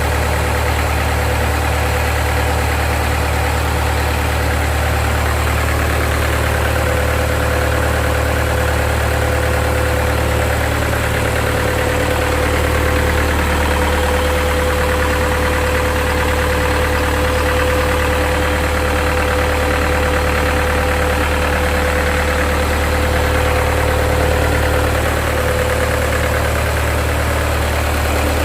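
Reconditioned Mitsubishi Fuso PS100 diesel engine, built to drive a shrimp-pond paddlewheel aerator, running steadily on a test run. A steady whine rides over the engine from about six seconds in until near the end.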